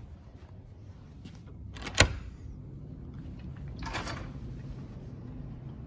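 Low handling noise and footsteps from someone walking with a handheld camera, with one sharp knock about two seconds in and a softer rattle around four seconds.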